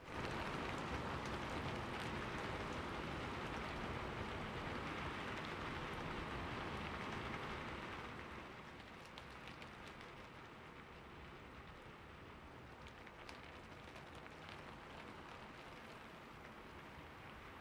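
Steady rain falling outside, an even hiss. About eight seconds in it gets quieter, and single drops can be heard ticking here and there.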